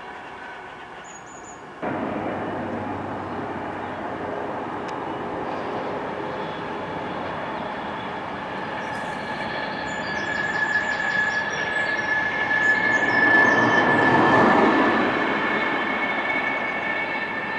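Class 390 Pendolino electric train passing on the line: a steady whine of several tones over a rushing noise that jumps up about two seconds in, swells to its loudest a little before the end and then eases off.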